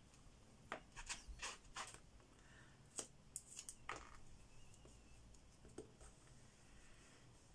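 Faint clicks, taps and a brief rub from handling a clear acrylic stamp and its plastic storage case, a scatter of short sounds over a few seconds.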